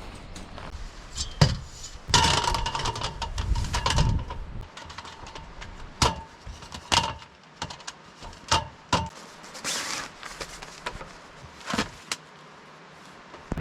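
A run of sharp clicks, knocks and rattles from hard objects being handled, busiest about two to four seconds in, with a few strikes ringing briefly.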